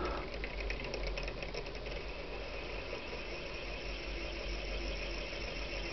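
Homopolar motor running: a solid copper wire loop spinning around a D cell, its bare ends rubbing against the battery top and the neodymium magnets at the base, giving a steady, quiet scraping rattle, with a quick crackle of ticks in the first couple of seconds.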